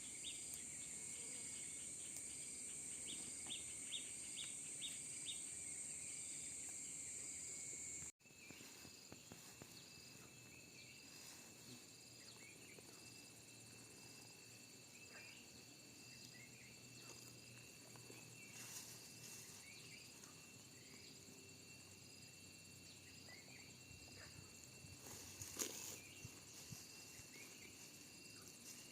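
Outdoor rural ambience: insects keep up a steady high drone, with a few short bird chirps over it. About eight seconds in the sound cuts abruptly to a quieter stretch of the same kind of insect drone.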